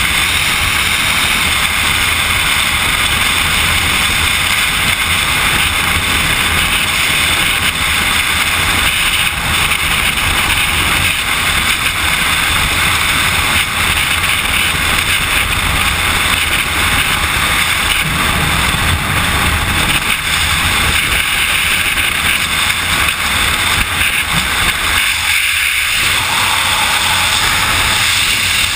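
Steady, loud rush of freefall wind buffeting a skydiver's body-mounted camera.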